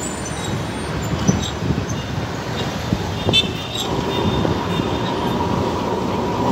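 A tram rumbling closer along the street over traffic noise, with a steady high whine setting in about four seconds in as it draws near. There are a few brief high-pitched tones near the middle.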